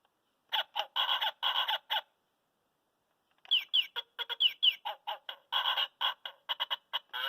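Children's toy piano playing recorded bird-call samples through its small speaker: a few short calls, a pause, then from about the middle a quick run of short chirps with falling pitch.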